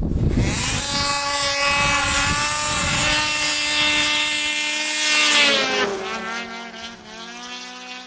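Two-stroke snowmobile engine at full throttle racing past, held at a steady high pitch, then dropping in pitch about five and a half seconds in as the sled goes by and fades. Behind it, a second, quieter engine's pitch rises near the end.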